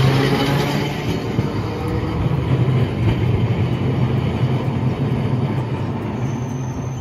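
Hiroden streetcar no. 703 running on its rails: a low steady hum with rolling wheel noise, fading as the car pulls away.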